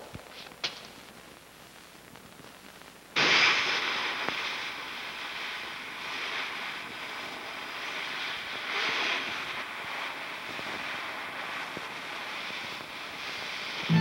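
A few faint taps, then about three seconds in a sudden loud rushing hiss that carries on, swelling and easing, like wind or surf.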